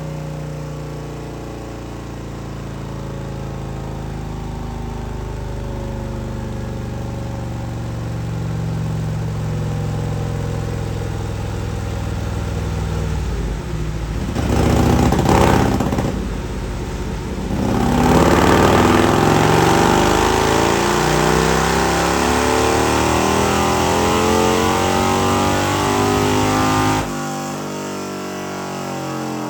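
Harley-Davidson Milwaukee-Eight 121 V-twin running and being revved. About halfway there is a sharp rev, then a long, loud high-rpm run that cuts off suddenly near the end.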